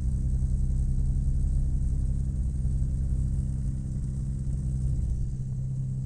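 Rotax 582 two-stroke twin engine of a Chinook Plus 2 ultralight idling steadily, its note easing slightly about five seconds in.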